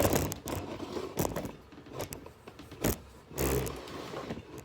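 Irregular knocks, clicks and scrapes, as of objects being handled and shifted about, with a denser scraping stretch a little past halfway.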